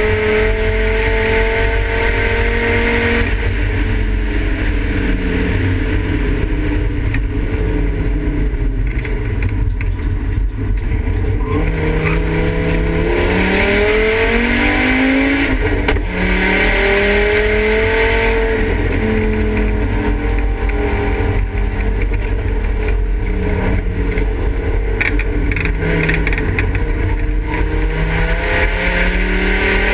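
Volvo 850 race car's five-cylinder engine heard from inside the stripped cabin, working hard around a circuit: it revs up through the gears in rising sweeps and drops in pitch at each shift and lift, over steady road and wind noise.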